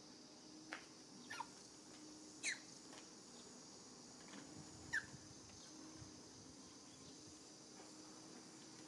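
A young macaque giving short, high whimpering squeaks that fall in pitch, four of them in the first five seconds, while it lies weak on the ground.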